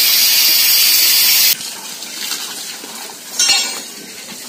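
Water jetting from a hose into wet sand: a loud, steady hiss that cuts off suddenly about one and a half seconds in, leaving a much quieter stretch with one brief sound near the end.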